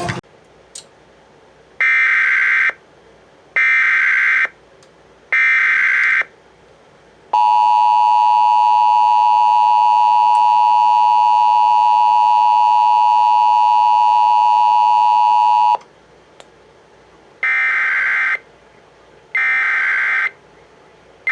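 Emergency Alert System broadcast signal: three short screeching SAME data bursts, then the steady two-tone EAS attention signal held for about eight seconds, then three more data bursts near the end. The bursts mark the start of a new alert.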